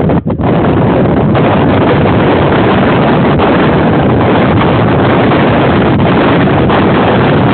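Strong wind buffeting the microphone: a loud, steady rushing roar that dips for an instant just after the start.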